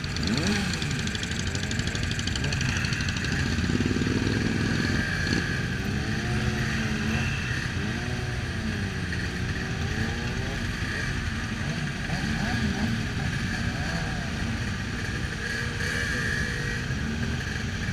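A large pack of motorcycles rolling slowly together, many engines running at low revs with frequent short throttle blips that rise and fall in pitch over a steady rumble.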